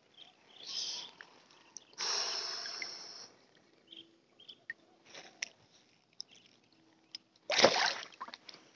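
Water splashing briefly near the end as a peacock bass is released back into the river. Before it come scattered small clicks and rustles and a louder hiss lasting about a second, from about two seconds in.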